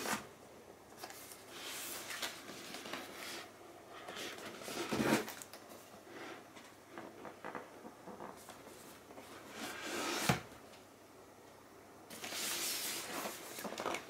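Cardboard box being handled by hand: scraping and rubbing as it is turned, with a knock about five seconds in, another about ten seconds in, and a longer rustle near the end.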